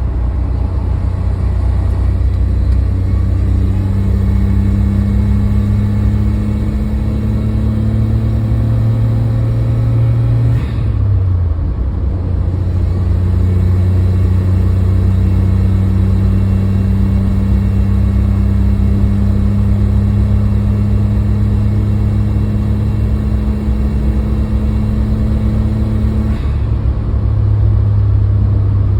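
Suzuki Jimny JB23's small three-cylinder turbo engine pulling under acceleration while driving, with the pitch dropping once about a third of the way in. A faint high whine rises with the engine under boost. The owner suspects the turbocharger, since a new belt tensioner did not cure it.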